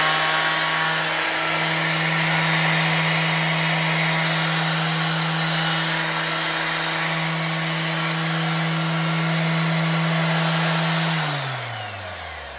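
Makita 9045B orbital finishing sander running free at full speed with no load, a steady motor hum and whine. About eleven seconds in it is switched off and its pitch falls as it winds down.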